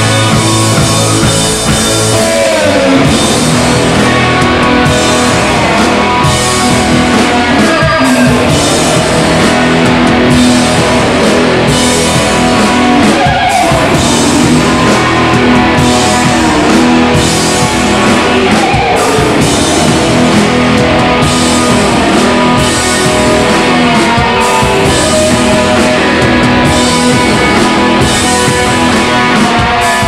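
A rock band playing live and loud: electric guitar and bass guitar over a drum kit.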